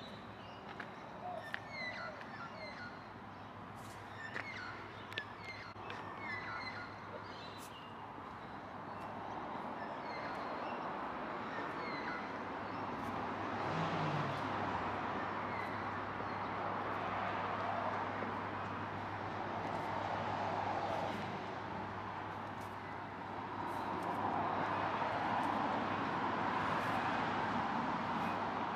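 Outdoor street ambience: small birds chirping repeatedly for the first several seconds, then a steady hiss of passing traffic that grows and is loudest near the end.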